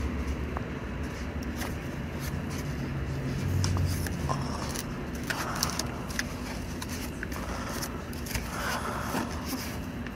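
Cardboard shipping box being pried and torn open by hand: scattered scrapes, rustles and clicks of the cardboard flaps. A low steady rumble runs underneath, swelling about four seconds in.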